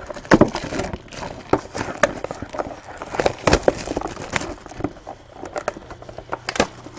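Cardboard card boxes being handled and shifted on a table, with crinkling plastic shrink-wrap and irregular knocks and taps.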